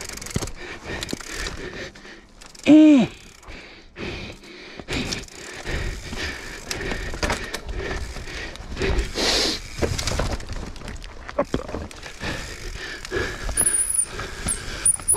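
Mountain bike riding down a dirt forest singletrack: tyres rolling over dirt and roots, with the chain, suspension and frame rattling and a stream of clicks and knocks from the bumps. A short, loud cry from the rider about three seconds in.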